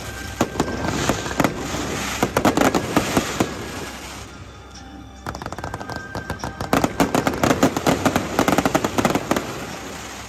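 Fireworks crackling and popping in rapid volleys over background music: two dense bursts of cracks with a short lull about four seconds in.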